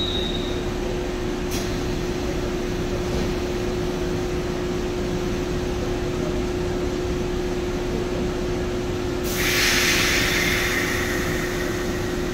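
Former Keikyu 1000-type electric train standing at the platform, its equipment giving a steady hum with one constant tone. About nine seconds in, a loud burst of air hiss starts and fades over a couple of seconds.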